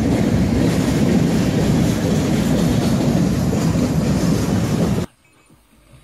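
Freight train running past: a loud, steady rumble that cuts off abruptly about five seconds in.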